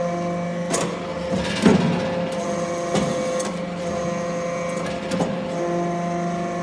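Hydraulic metal-chip briquetting press running: a steady hum of its pump and motor, with tones that shift every second or two as it works, and a few sharp metallic knocks, the loudest about a second and a half in.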